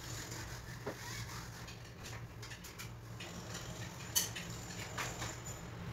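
Cloth wiping a window pane, with a few light taps and clicks against the glass and frame, the sharpest about four seconds in, over a steady low hum.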